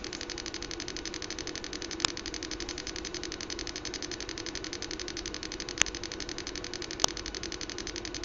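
Small speaker driven by an Arduino Mega2560 giving a fast, even train of clicks, a crackling buzz rather than a clean tone, with a few louder single clicks about two, six and seven seconds in.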